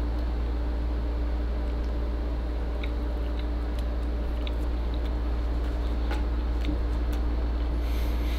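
Faint soft clicks and crunches of biting into and chewing a fried fish sandwich, over a steady low hum.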